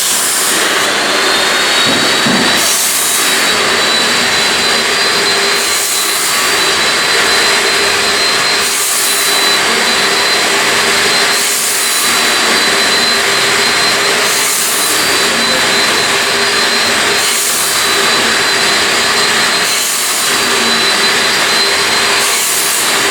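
A motor-driven machine running loudly and steadily, with a high whine that rises as it spins up and then holds one pitch, and a hissing rush that swells about every three seconds.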